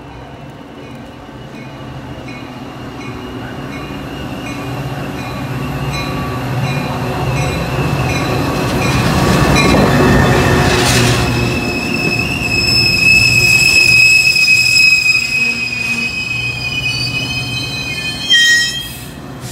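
Metra commuter train pulling into the station: locomotive and wheel noise grow louder until the locomotive passes about ten seconds in, then the bilevel coaches roll by with a steady high wheel squeal as the train brakes. A short loud hiss comes near the end.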